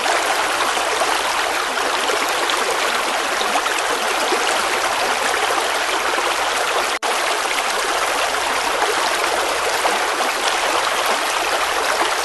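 River water flowing in a steady, even rush, with a split-second break in the sound about seven seconds in.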